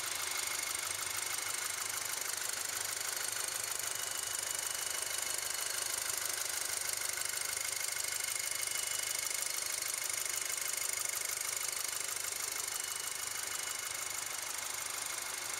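The Golf R's turbocharged 2.0-litre TSI four-cylinder engine idling steadily, heard with the hood open.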